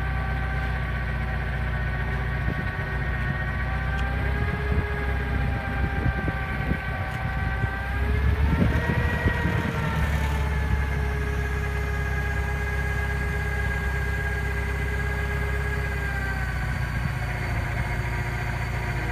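Forklift engine running at idle, its speed rising briefly about eight seconds in and easing back, then dropping a little near the end.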